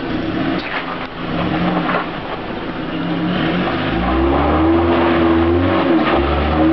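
Older BMW saloon's engine revved hard for a wheel spin, climbing about three seconds in and held at high revs, with a brief dip near the end. The attempt is weak, which the onlooker puts down to the brake being left on.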